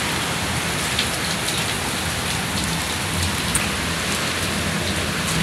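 Steady rain falling on rooftops and a wet concrete floor, an even rushing hiss with a few sharper ticks from single drops striking close by.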